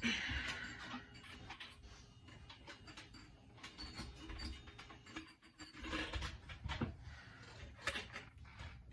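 Scattered light clicks, scrapes and rustles of hands working with small objects close by, with a louder rustling spell at the start and again about six seconds in.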